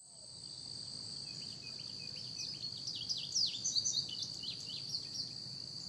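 Steady high-pitched drone of an insect chorus, with a bird calling in a quick run of short chirps that rise and fall, busiest around the middle.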